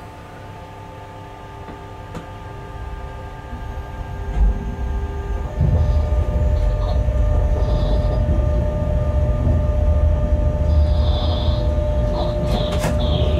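Bombardier TRAXX BR 186 electric locomotive running along the track, heard from the cab: a steady hum of several held tones over the rumble of the wheels, which grows much louder about five and a half seconds in. Near the end come a few sharp clicks from the wheels over the rails and several short high squeals.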